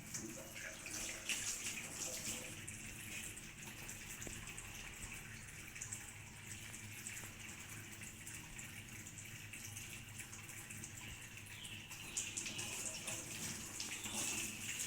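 Tap water running steadily into a sink while hands are washed under it.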